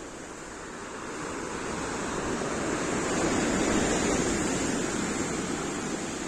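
Surf of the Black Sea in a storm washing on the shore, the rush swelling to its loudest about halfway through and then easing off.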